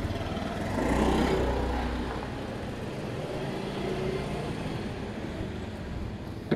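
Small motor scooter engine running, swelling louder for about a second from just under a second in as it revs and pulls away, then settling to a steady drone. A single sharp knock right at the end.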